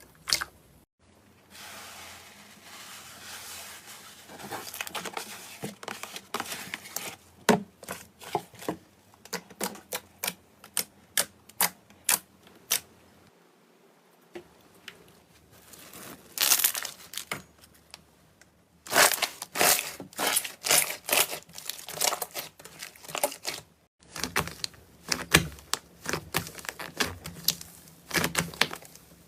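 Slime being worked, giving rapid crackling pops and clicks in irregular bursts, with softer stretches between them.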